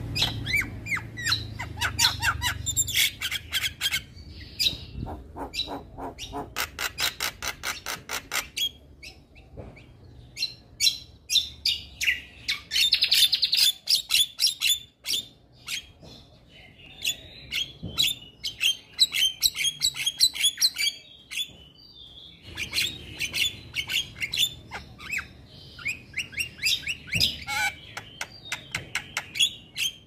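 Male Javan myna (jalak kebo) singing in full song. It gives fast trains of sharp clicking notes mixed with harsh, rasping chatter and squawks, in bursts broken by a few short pauses.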